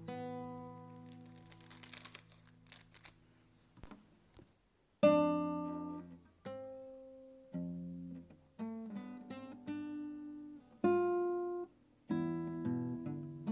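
Solo classical guitar playing a slow melody in single plucked notes and chords, each ringing and fading away. It pauses almost silent for about a second just before the middle, then comes back with a loud chord.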